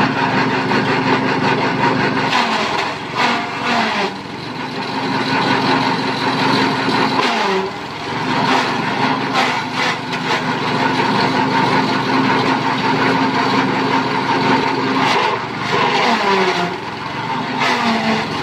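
Small engine-driven forage chopper running, its blades cutting leafy branches and grass as they are fed in. The engine note sags and drops in pitch three times as material goes in, then picks back up.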